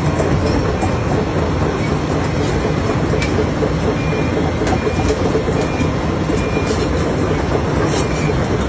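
Heavy machinery engines running steadily with a deep rumble, as at a mine site with excavators and dump trucks. Faint short beeps sound about once a second from about three seconds in.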